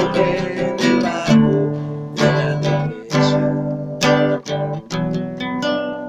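Acoustic guitar playing an instrumental passage of a song, with strummed chords and picked notes that each ring and fade.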